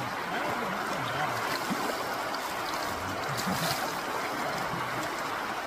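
Fast-flowing river current rushing steadily over shallows, a constant hiss and rush of water.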